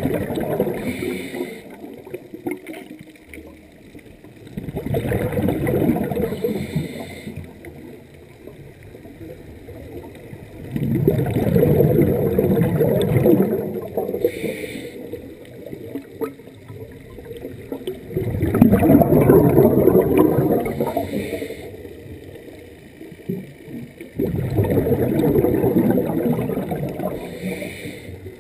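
Scuba diver's breathing through a regulator: a rush of exhaled bubbles every six to seven seconds, each lasting two to three seconds, with quieter inhale pauses between.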